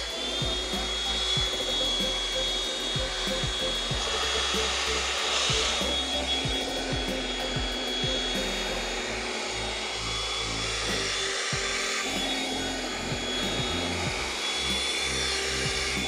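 Philips SpeedPro Aqua cordless vacuum's handheld unit running with a steady high whine, its narrow nozzle rubbing along fabric sofa upholstery as it sucks.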